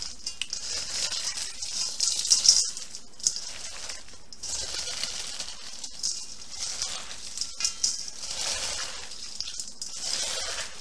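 Gloved hands squeezing and mixing ground beef with dry stovetop stuffing, bacon and chopped vegetables in a stainless steel bowl: an irregular rustling squish with uneven louder crackles, loudest about two seconds in.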